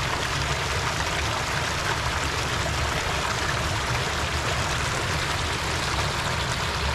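Steady rush of running water, muddy trail runoff flowing through the rut, over a low rumble, unchanging throughout.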